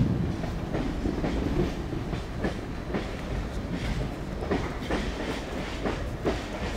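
Tram rolling on rails: a steady low rumble with irregular wheel clacks about every half second.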